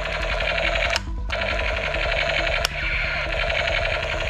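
Battery-powered toy gun's electronic firing sound: a steady buzzing rattle that cuts off briefly about a second in, as the trigger is let go, and starts again, with a single sharp click near the middle.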